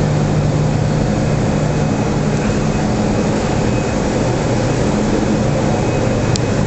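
Steady, loud industrial din of steel-mill plant around molten steel: an even rumbling noise with a low hum underneath, and one brief click near the end.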